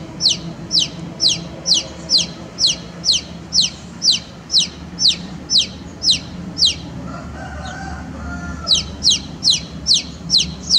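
Baby chick peeping: a regular run of short cheeps, each falling in pitch, about three a second, with a pause of nearly two seconds after the middle before they start again.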